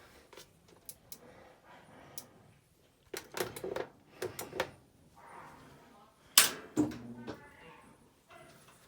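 A series of sharp clicks and knocks, with a louder knock about six seconds in.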